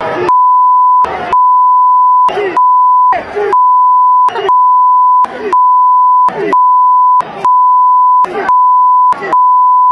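A steady censor bleep tone laid over the stadium sound, covering the fans' insulting chants. It is broken by nine short gaps, roughly one a second, where crowd voices come through.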